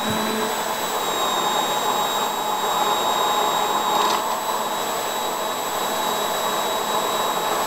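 Immersion blender running steadily at high speed with a high whine, puréeing fresh strawberries into sauce in a plastic beaker. The pitch dips briefly about four seconds in.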